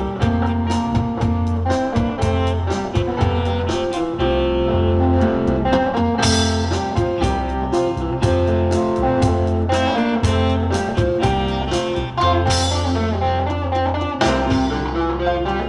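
Live combo band of saxophone, keyboard, drums, guitar and bass playing an instrumental number with a steady drum beat, the guitar standing out.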